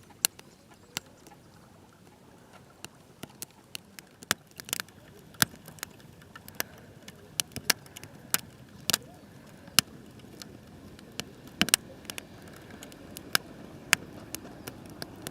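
Campfire crackling, with irregular sharp pops, some much louder than others.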